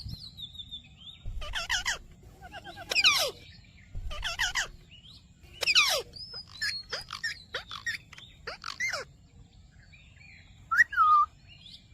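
Ringneck parakeet calling and chattering in short, sweeping bursts about every second or two, with brief pauses between them.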